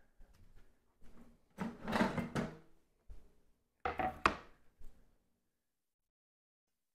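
A few knocks and thunks, with some clatter, as a wooden cutting board and kitchen items are handled and set down on a countertop.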